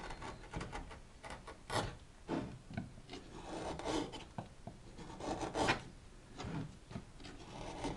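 A freshly sharpened and polished woodcarving chisel paring an alder board across the grain: a run of short, dry scraping cuts, about two a second, at an uneven pace.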